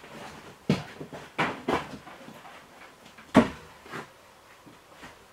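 Wooden strapping boards knocking together as they are handled and shifted: about five sharp knocks, the loudest about three and a half seconds in.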